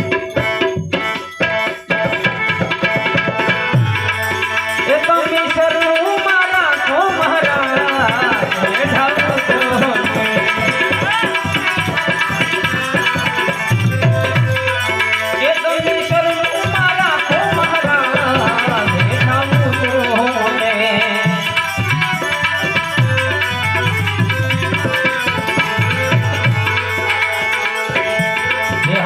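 Instrumental interlude of a bhajan: harmonium holding and playing a melody over a fast, steady hand-drum rhythm with deep bass strokes. The drums break off briefly about a second in.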